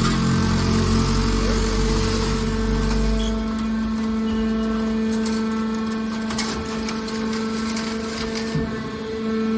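Hydraulic scrap-metal baler running: a steady hum from its motor and hydraulic pump, with a heavy low rumble that eases off after about three seconds and a few light knocks later on.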